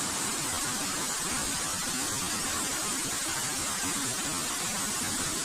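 Waterfall: a steady rush of falling water, unchanging and hissy in the highs.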